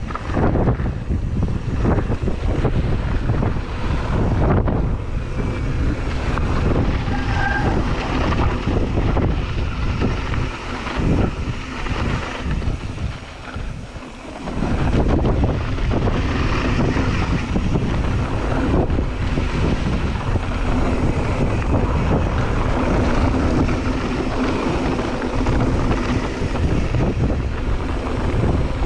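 Wind rushing over a GoPro Hero 8's microphone, mixed with the noise of a mountain bike riding a dirt singletrack. It eases for a couple of seconds about twelve seconds in, then picks up again.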